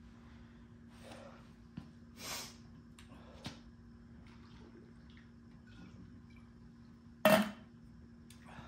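A Gatorade sports bottle being handled and drunk from, with small clicks and faint swallowing sounds. About seven seconds in comes a sharp knock as the bottle is set back down on the concrete floor.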